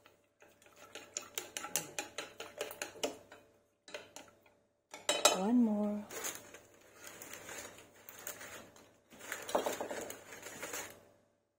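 Metal cutlery clinking and clattering against a bowl and dishes in quick runs of strokes, during breakfast cooking.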